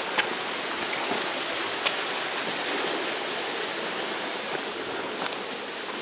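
Steady rush of a waterfall's falling water, with a couple of faint clicks.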